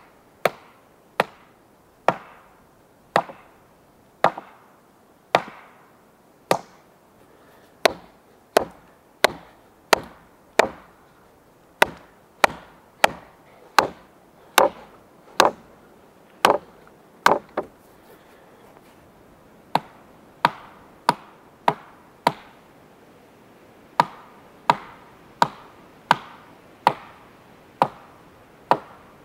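Wood being struck by a hand tool over and over: sharp cracks about once a second, each with a short ringing tail. The strikes come faster in the middle and stop for about a second and a half some eighteen seconds in.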